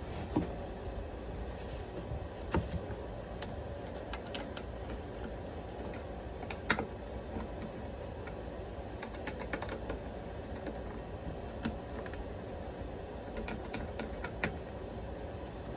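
Irregular light clicks and taps of small metal parts being handled while the grinding wheel on a chainsaw-chain grinder is swapped.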